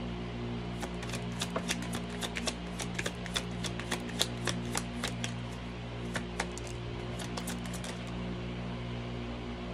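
A deck of cards shuffled by hand: a quick, irregular run of sharp clicks and snaps that starts about a second in and stops about eight seconds in.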